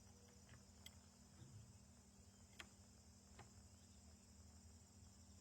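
Very faint, steady high-pitched trilling of crickets, with a few soft ticks.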